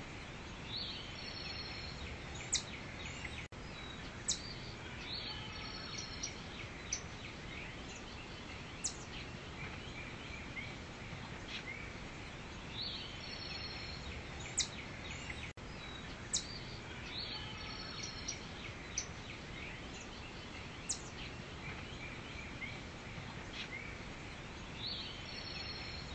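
Forest ambience: a steady background hiss with short, high bird chirps scattered through it. The sound cuts out for an instant twice, a few seconds in and just past the middle.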